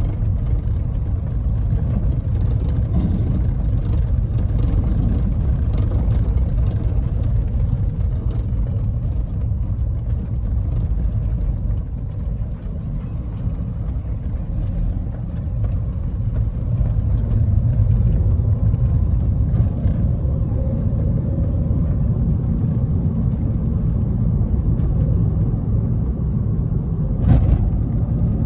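Car driving along a road: a steady low rumble of engine and tyres, with one brief knock near the end.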